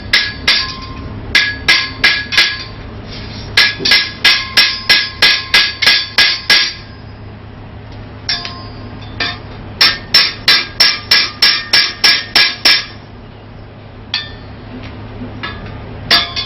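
Ball-peen hammer peening a steel rivet that joins the legs to a forged iron firewood rack, flattening its head to spread it wider. Each blow rings out metallically. The blows come in quick runs of about four a second, with short pauses between runs.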